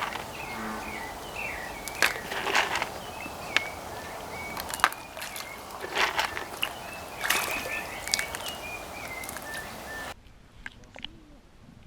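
Bullfrogs snapping at floating fish-feed pellets: scattered splashes and plops in the water, with small birds chirping repeatedly in the background. The sound drops suddenly quieter about ten seconds in.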